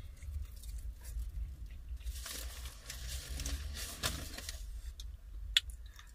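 Paper food packaging rustling and crinkling for a couple of seconds in the middle, with one sharp click near the end, over a steady low rumble.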